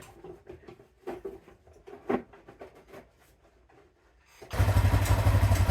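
Light knocks and rubs of handling, then, about four and a half seconds in, the 2007 Arctic Cat 650 H1 ATV's single-cylinder four-stroke engine starts abruptly and idles with a steady pulsing beat. It still has the ticking from the carburettor area that shows only at idle, which the owner sets out to tune away at the air screw.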